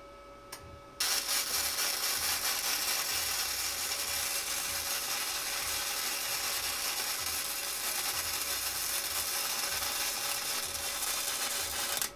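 MIG welder running a continuous weld, joining a steel rod to a gear shift lever, with a steady crackle that starts abruptly about a second in and stops sharply near the end. A brief click comes just before the arc starts.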